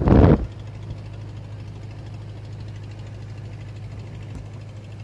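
A boat's engine running steadily with a low drone. A brief loud thump near the start is the loudest sound.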